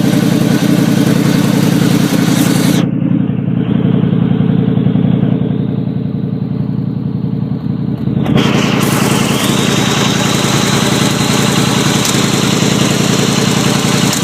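1989 Chevrolet Caprice engine running steadily and loud, its exhaust noise raised by an exhaust leak on one side. The sound turns duller for about five seconds, from roughly three seconds in, then clears again.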